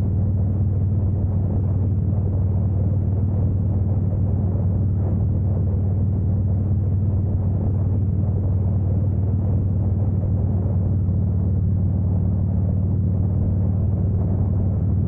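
Harley-Davidson Heritage 114's V-twin engine running steadily at cruising speed, a deep even hum mixed with wind and road noise.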